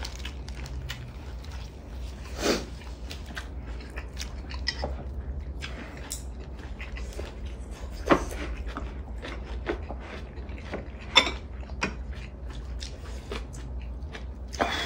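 Close-up eating sounds from braised mackerel and kimchi: chewing and mouth smacks with scattered short clicks, a few of them sharp and loud, over a steady low hum.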